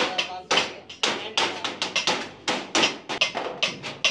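Hammer blows on galvanized sheet metal, tapping down the edge of a metal trunk at about two strikes a second, each with a short ring after it.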